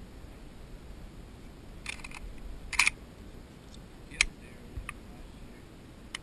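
A few sharp mechanical clicks and clacks from a scoped hunting rifle being handled, the loudest a little under three seconds in.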